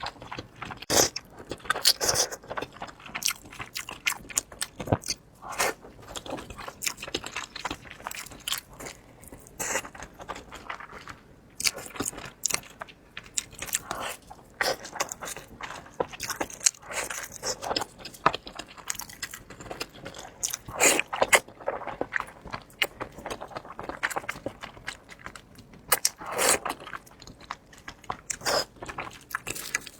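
Close-miked eating sounds: irregular crisp, crunchy bites and chewing, several sharp crackles a second.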